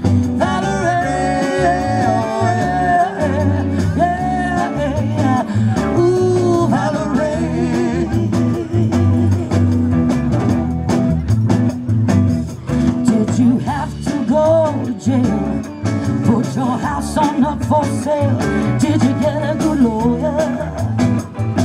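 Live band playing through a PA: two electric guitars and a drum kit, with a woman singing the lead.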